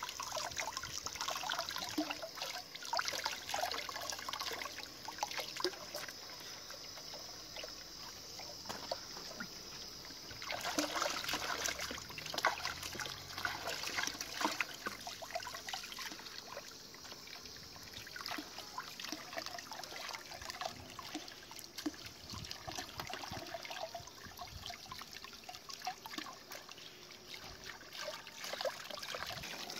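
Water running from a hose into a full metal pot, splashing and trickling as hands rinse pieces of skinned rabbit meat under the stream. The splashing gets louder after about ten seconds.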